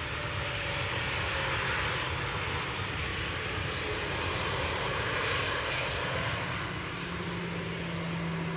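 Airbus A320-216's CFM56 turbofan engines running as the airliner rolls out along the runway after touchdown: a steady rushing noise, joined by a low steady hum near the end.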